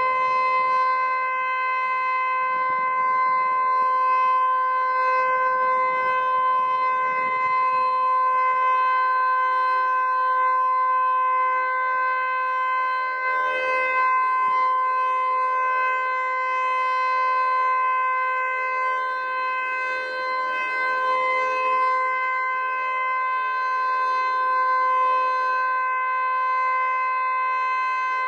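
Federal Signal Eclipse 9 outdoor warning siren sounding a full alert: one loud, continuous tone that holds its pitch without rising and falling, because its horns do not rotate.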